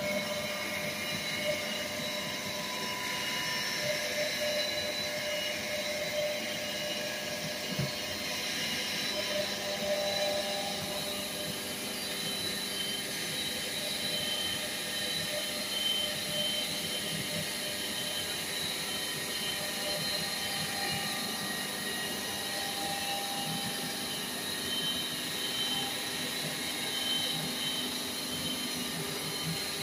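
Cylinder-head resurfacing machine running steadily, skimming a Simca Aronde cylinder head flat in a machining pass. A higher hiss joins about eleven seconds in.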